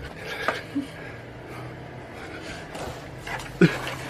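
Cardboard box rustling and knocking as a cat pushes into it, with a short sharp sound about three and a half seconds in.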